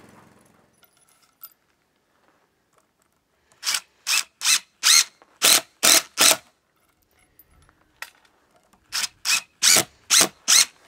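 DeWalt 18V cordless drill-driver run in short trigger bursts, each spinning up briefly: seven quick bursts, a pause, then five more.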